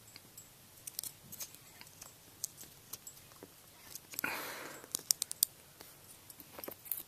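Quiet handling of forks and rubber bands: scattered small clicks and taps, with a short rustling scrape about four seconds in.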